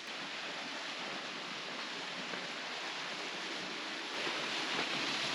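Waterfall rushing: a steady roar of falling water that grows a little louder about four seconds in.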